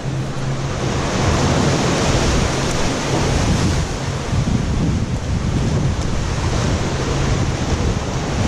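Steady rush of wind and surf, with wind buffeting the microphone, and a faint low hum underneath.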